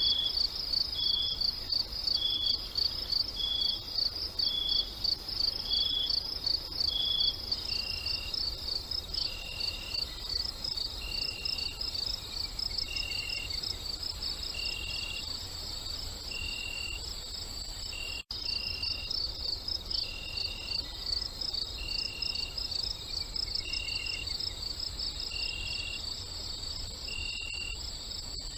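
Crickets chirping in a steady, fast-pulsing chorus, with a second, lower chirp repeating at an even pace, a little slower and lower after about a quarter of the way through. The sound drops out for an instant about two-thirds of the way through.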